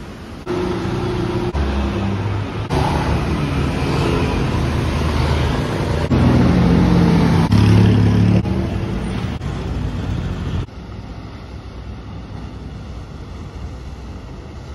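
Busy city street traffic: car and motorbike engines running, in several short clips that cut off abruptly. Near the end it gives way to a quieter, even hiss of wind and river water.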